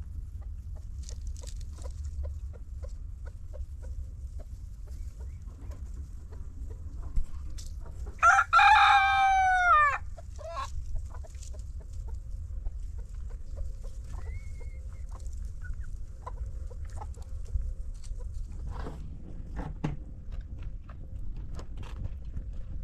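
A rooster crows once, about eight seconds in, a drawn-out call of about two seconds that falls in pitch at the end, over a low steady rumble.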